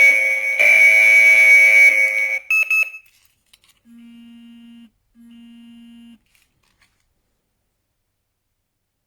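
Electronic alarm-system siren sounding loudly on steady tones, cutting off about two and a half seconds in, followed by two long, low beeps of about a second each.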